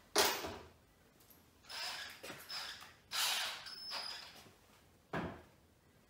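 Handling knocks and rattles from a cordless drill while a 5 mm bit is fitted in its chuck. There is a sharp knock at the start, then a few short scraping rattles, then a duller knock about five seconds in.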